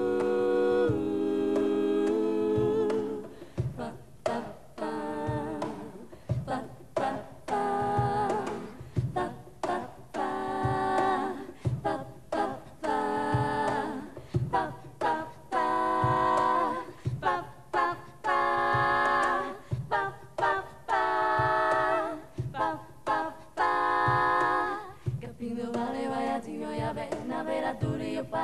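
A vocal group singing a cappella in harmony: several voices hold chords for the first few seconds, then sing short rhythmic phrases of quick syllables over a soft, regular low beat.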